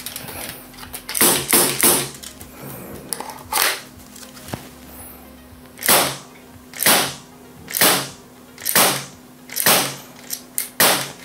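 Borner 17 CO2 air pistol (an all-plastic Glock 17 copy) firing 4.5 mm steel BBs: about ten sharp shots, three in quick succession early on, then one roughly every second.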